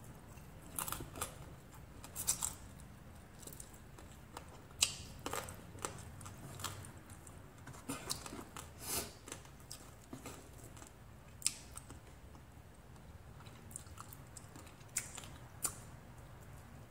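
A person eating with their hands and chewing rice and grilled milkfish close to the microphone: irregular wet mouth clicks and smacks, a dozen or more sharp ones scattered through, over a low steady room hum.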